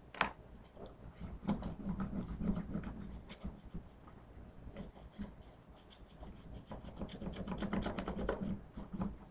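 Wax crayon held flat and rubbed quickly back and forth over paper laid on leaves: a scratchy, rasping rub of rapid strokes, coming in two spells, the second near the end.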